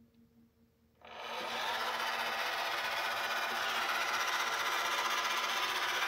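Roomba robot vacuum's motor starts up about a second in, spinning up quickly to a steady, loud whirring run as the robot sets off.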